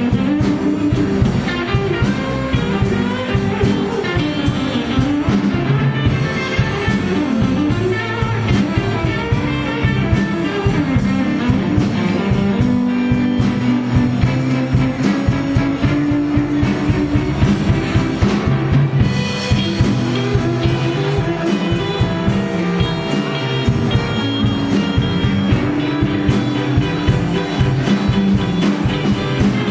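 Live blues band playing: electric guitars, bass, keyboards and drum kit.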